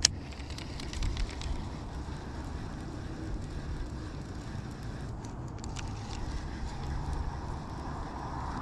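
Strong wind buffeting the microphone, a steady low rumble, with a sharp click at the very start and a few small knocks about a second in.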